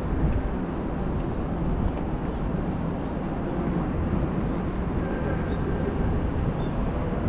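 Outdoor city street ambience: a steady low rumble of passing traffic.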